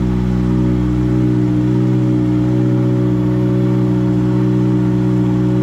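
Ford Fiesta R5 rally car's 1.6-litre turbocharged four-cylinder engine idling steadily.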